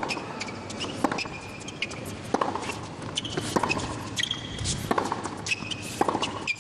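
Tennis rally on a hard court: a ball struck by rackets and bouncing, a sharp pop roughly every second, with shoes squeaking on the court between shots.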